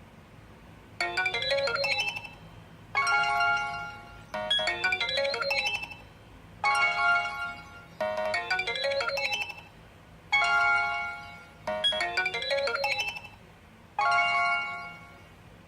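HTC Desire 601 ringtone playing: a short melodic phrase in two parts, repeated four times with brief pauses between.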